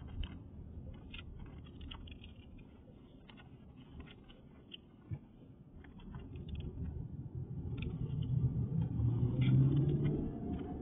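A car approaching on the road, its engine and tyre noise building over the second half and loudest near the end.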